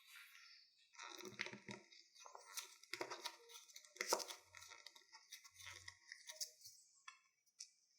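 Food-preparation handling sounds: irregular faint crackling and rustling with small taps and a couple of soft low thuds.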